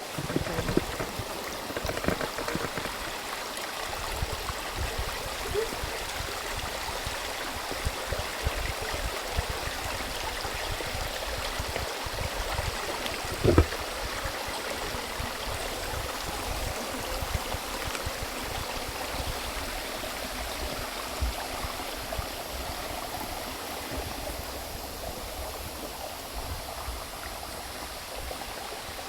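A stream of water running steadily, with one sharp knock about halfway through.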